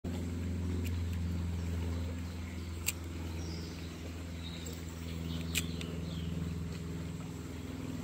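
A steady low motor hum with several fixed pitches, like a distant engine, under faint bird chirps. Two sharp clicks come through, one about three seconds in and another about five and a half seconds in.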